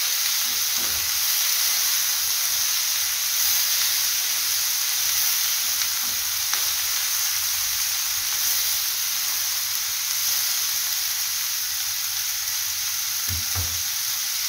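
Chopped tomatoes frying with a steady sizzle in an oiled pan as they are stirred with a wooden spatula, with a couple of soft knocks about a second in and near the end.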